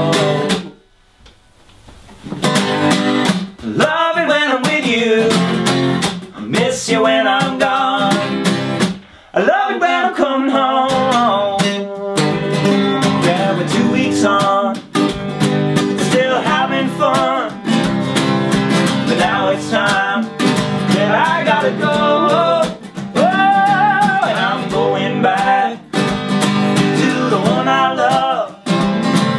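Live acoustic folk song: two acoustic guitars strummed while two men sing. The music drops out briefly about half a second in and picks up again about two seconds in.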